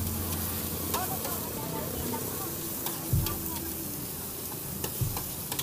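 Cabbage, greens and noodles sizzling in a large wok while a metal spatula stirs them. Several sharp clicks and a few knocks of the spatula against the pan come through the sizzle.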